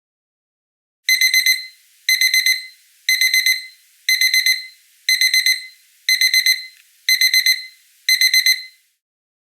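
Kitchen timer's ending alarm beeper sounding time's up: eight rounds of four quick high-pitched beeps, one round a second, then it stops.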